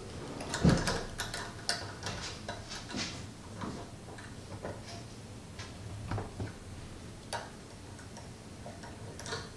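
A small wrench clicking and ticking against a nut and washer as the nut holding the handle onto the brewing kettle is turned tight. The light metal clicks come irregularly, about one or two a second.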